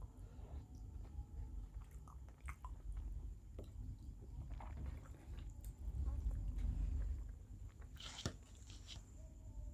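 Close-up eating sounds of a person chewing rice with a small-fish curry: soft wet smacks and small clicks of chewing and biting. A sharper click stands out about eight seconds in.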